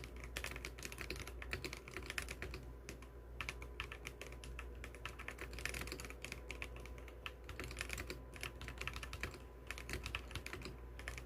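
Typing on an Akko 5075B Plus mechanical keyboard with dye-sub keycaps: fast, continuous keystroke clacks with a few brief pauses.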